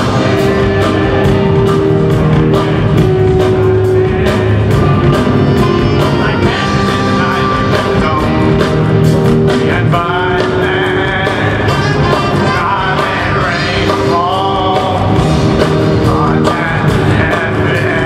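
Live jazz fusion band playing: saxophones and trumpet over electric guitars, bass and a steady drum kit beat. A lead line that bends and wavers in pitch comes in about halfway through.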